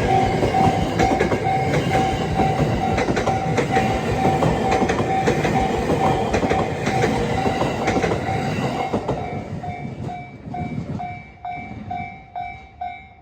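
JR 209 series electric multiple unit passing over a level crossing, its wheels clicking over the rail joints, while the Japanese level-crossing bell rings its steady repeating ding. The train noise fades about nine seconds in, leaving the crossing bell ringing about twice a second.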